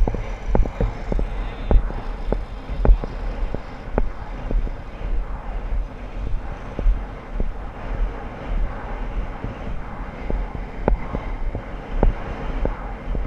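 Wind rumbling over an action camera's microphone while a horse is ridden across grass, with a scatter of sharp, irregular knocks from the horse's stride and tack.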